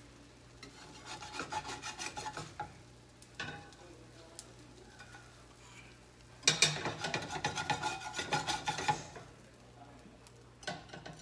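Metal slotted spatula scraping across the bottom of a stainless steel frying pan as slices of French toast are lifted out, in two spells of quick scraping strokes: one about a second in and a longer, louder one from about six and a half seconds, with a knock near the end.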